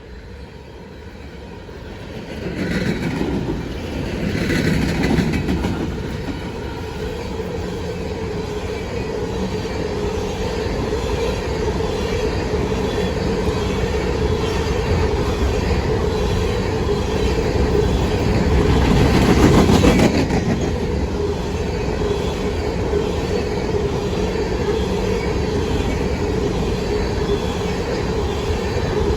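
Empty CSX coal train rolling past. The sound swells about 3 and 5 seconds in and again around 20 seconds, then settles into a steady rumble and clickety-clack of hopper cars over the rail joints, with a steady wheel tone.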